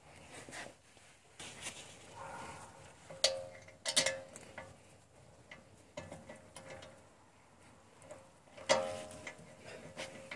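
Metal brake parts being handled and fitted at a rear disc brake caliper. There are soft scrapes and rattles, and a few sharp metallic clinks that ring briefly: two about three to four seconds in, and one near nine seconds.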